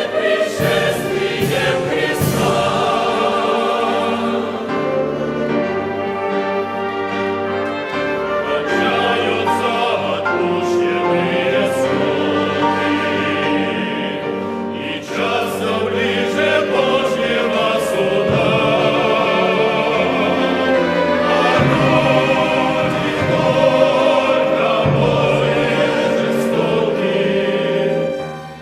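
Mixed church choir singing a Russian-language hymn with orchestral accompaniment, in long sustained chords, with a short drop between phrases near the end.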